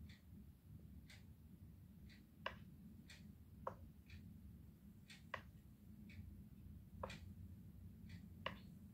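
Near silence: low room hum with faint, irregular clicks, about one or two a second.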